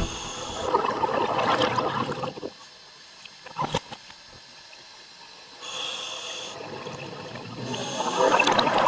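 Scuba diver breathing through a regulator, heard underwater: a burst of exhaled bubbles, a quiet spell with a single click, a short hiss, then another burst of bubbles near the end.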